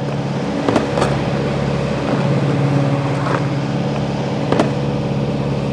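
A boat's engine running steadily at an even pitch, with a few light knocks on the boat.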